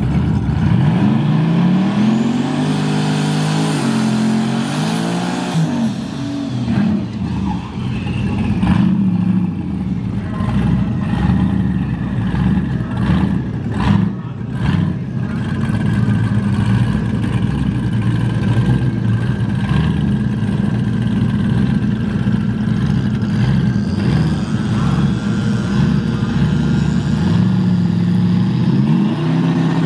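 A car engine running and revving: its pitch rises and falls several times at the start, holds fairly steady through the middle and rises again near the end. Short sharp noises cluster in the middle.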